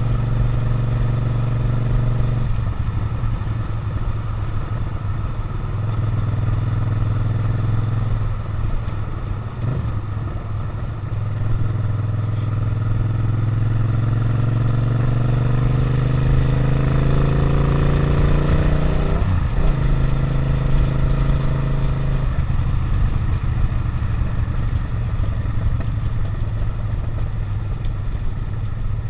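Suzuki SV650's V-twin engine running on a ride. Its pitch holds steady at first, then climbs steadily for several seconds as the bike accelerates, and drops sharply at a gear change about two-thirds of the way through.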